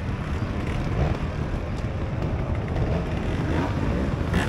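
Steady outdoor din of a motorcycle trials event: trial bike engines running in the background under a low wind rumble on the microphone, with faint spectator chatter.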